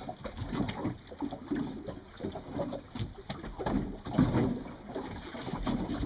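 Small boat drifting at sea, engine off: water slapping against the hull with wind noise. Two sharp clicks come about three seconds in, a third of a second apart.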